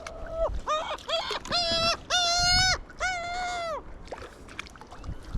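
A gull calling: a series of about six mewing calls, the longest near the middle, then quiet water and wind.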